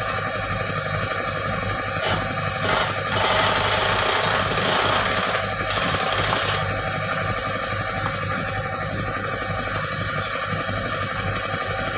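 Excavator diesel engine idling steadily, with a louder rushing hiss for about three seconds in the middle.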